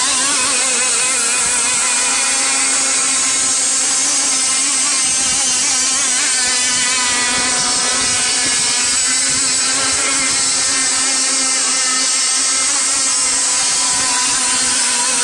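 Radio-controlled outrigger and hydroplane model race boats running flat out on the water: a steady, high-pitched motor whine whose pitch wavers up and down.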